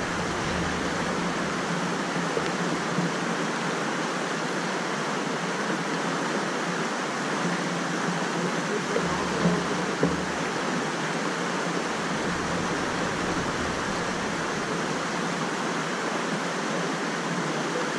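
Flash-flood water rushing across a road crossing, a steady roar of running water. A couple of brief knocks can be heard about halfway through.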